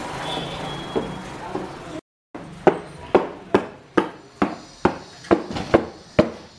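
A small hand patting a cardboard board-game box, giving sharp hollow knocks about twice a second from about two and a half seconds in.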